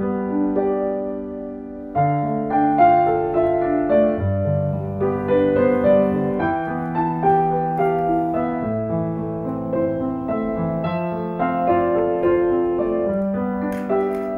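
Solo piano ballad: a melody of single notes over held low bass notes.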